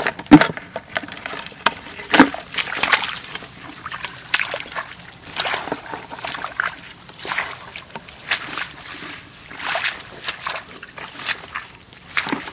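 Shallow water sloshing and splashing in a quick, irregular series of splashes, stirred up while hunting for crabs in a wet rice field.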